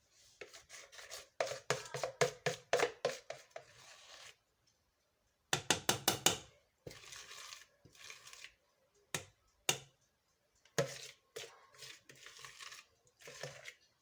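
Kitchen handling: clusters of quick sharp knocks and clatter with some scraping or rubbing, broken by short pauses.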